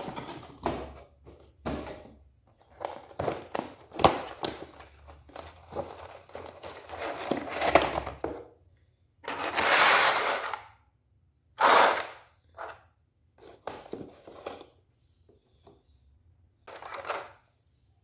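Rigid clear plastic packaging trays being handled as bulb cameras are lifted out: a run of irregular clicks, knocks and crackles, with two longer, louder plastic crackles about ten and twelve seconds in.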